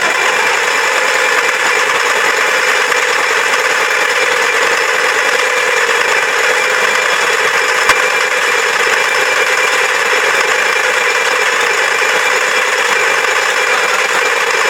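Bare V-configuration turbo diesel truck engine, out of the vehicle on a pallet with no exhaust system fitted, running steadily at one speed. It is loud and unmuffled, with one short click about eight seconds in.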